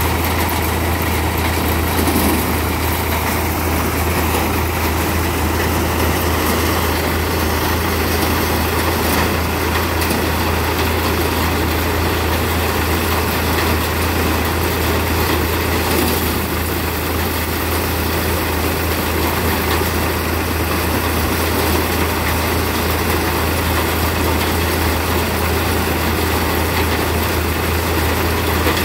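Pigeon-pea threshing machine running steadily, a constant low hum under an even mechanical rumble and rattle.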